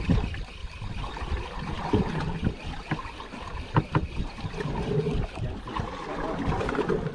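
Water sloshing and slapping against the hull of a small fishing boat in choppy sea, with wind buffeting the microphone and a few sharp knocks around the middle.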